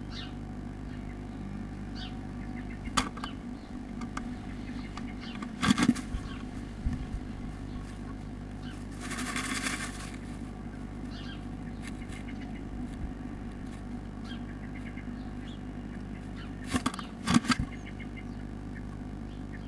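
A blue tit in a nest box: sharp knocks and scrabbling against the wooden box about six seconds in, a dense rustle of moss nest material around nine to ten seconds, and another cluster of knocks and wing flutters near the end. A steady low hum runs underneath throughout.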